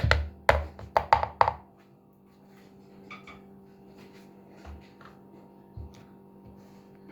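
Knife chopping on a cutting board: a quick run of sharp knocks in the first second and a half, then a steady low hum with a few faint clicks.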